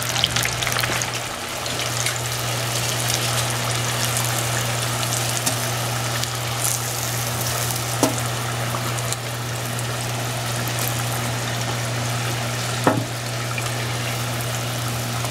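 Battered bowfin chunks deep-frying in a pot of oil that is running too hot, about 450°F instead of 350: a steady sizzle with fine crackling and a low steady hum beneath. Two light clicks of metal tongs against the pot, about 8 and 13 seconds in.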